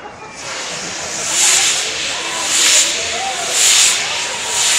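Fireworks on a burning Judas effigy hissing as they spray sparks, the hiss swelling about once a second.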